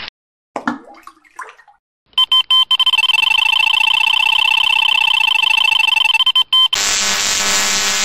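Electronic carp-fishing bite alarm sounding. A few quick beeps about two seconds in run into one continuous high tone for about four seconds, followed near the end by a harsher buzzing tone.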